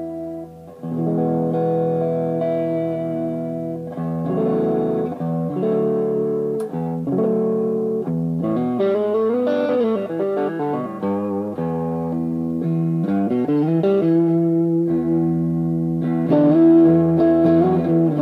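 Greco WS-STD electric guitar played: ringing chords and single notes that change every second or so, with notes bent or slid up and down in the middle.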